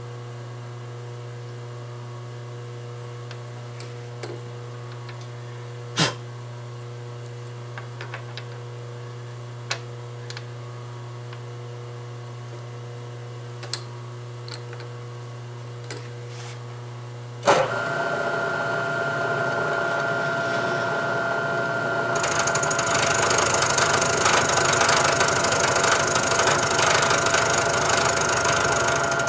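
Steady low hum with a few small clicks and knocks while the work is set up by hand, then a sharp click about 17 seconds in as a vertical milling machine's spindle starts and runs with a steady whine. From about 22 seconds the end mill side-milling the bolt head adds a louder hissing cutting noise.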